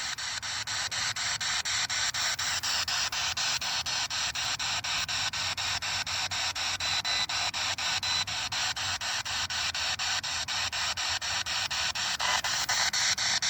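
Handheld spirit box (ghost box) sweeping through radio stations: an even radio static hiss chopped into a fast, steady pulse several times a second, with a faint hum under it. It is held out for spirits to speak through.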